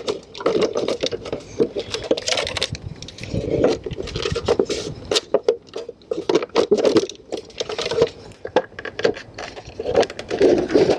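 Plastic EPIRB housing and its cover being handled and fitted onto the bracket: irregular clicks, knocks and scraping of plastic against plastic and the metal rail.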